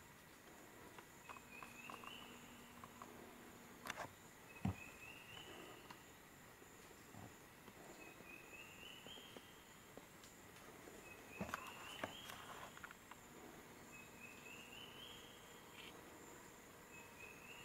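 Faint night ambience: insects chirring steadily, with a short rising chirp repeated about every three seconds. A few sharp clicks and knocks come about four seconds in and again near the middle.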